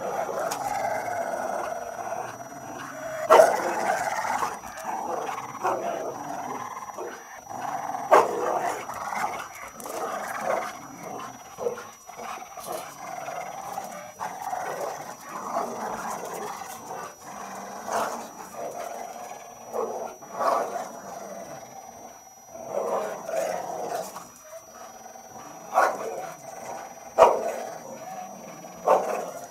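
Dogs play-growling as they tug against each other on a plastic traffic cone. The growling rises and falls almost without a break, with a few sudden louder sounds.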